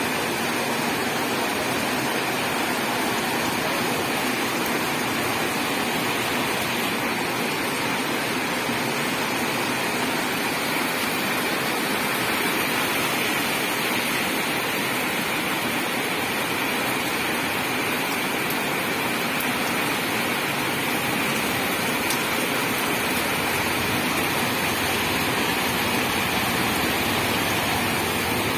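Heavy rain pouring steadily onto pavement and standing water: an even, unbroken hiss.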